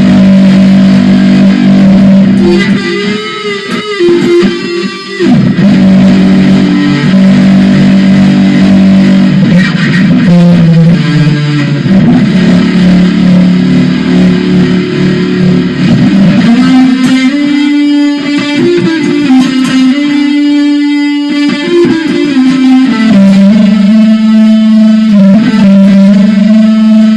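Very loud electric-guitar music: long, distorted held notes that change pitch every few seconds, with a quieter, thinner passage about three to five seconds in.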